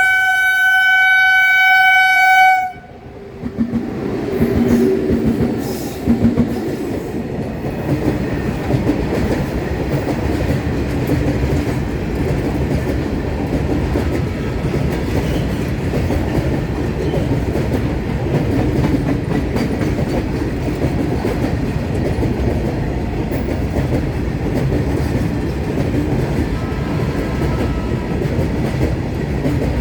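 Indian Railways WAG9 electric locomotive horn sounding one long, steady blast for about two and a half seconds, then a train running past close by, a steady rumble with clattering wheels over the rail joints.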